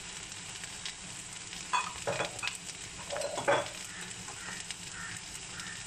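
Chicken, potato and onion samosa filling sizzling steadily in oil in a non-stick pan, with a few knocks and scrapes of a steel spoon in the pan around the middle.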